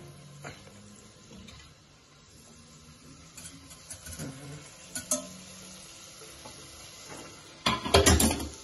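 A spoon stirring butter melting and sizzling in a stainless-steel saucepan on a gas burner, with light clicks and scrapes of the spoon against the pan. Near the end comes a loud rustling burst as the camera is moved close to the microphone.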